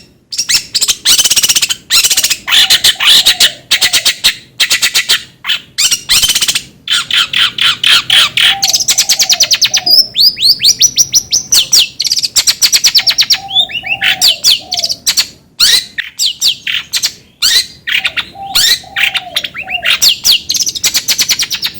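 Long-tailed shrike (cendet) song used as a lure: harsh scratchy chatter and fast rapid-note trills, loud and nearly continuous. A short low cooing phrase recurs every few seconds beneath the song.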